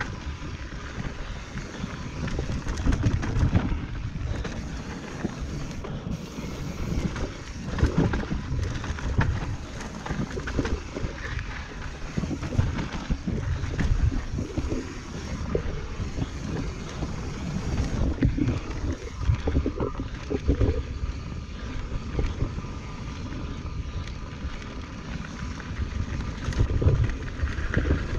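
Transition Patrol carbon mountain bike descending a rough dirt-and-rock trail: continuous tyre roar on the ground with the bike rattling and jolting over bumps, and wind buffeting the microphone.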